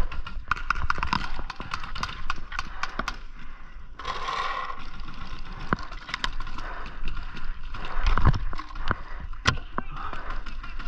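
Paintball markers firing in quick runs of sharp pops. There is a rustle about four seconds in and a heavy thump about eight seconds in.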